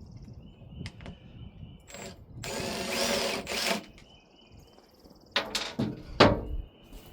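Power drill running for about a second and a half, then a few sharp knocks near the end.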